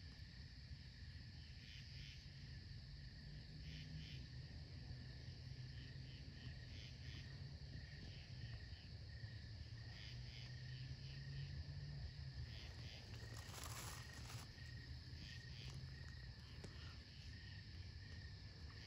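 Faint chorus of night insects, crickets chirping in a steady trill with repeated pulsed calls, over a low steady hum. A brief hiss about fourteen seconds in.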